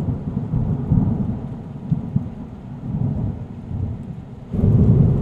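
Rolling thunder with rain, a deep rumble that swells and fades in waves, with its loudest roll near the end.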